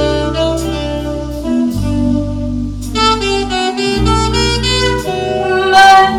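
Recorded jazz played back through ATC SCM 11 loudspeakers: a tenor saxophone plays a melodic fill between vocal lines, over held bass notes and snare drum brushes.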